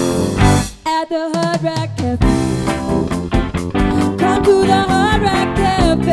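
Live band playing with a woman singing lead over drums, electric guitar, bass and keyboard. About a second in the band stops, leaving the voice almost alone for about a second, then the full band comes back in with a drum hit.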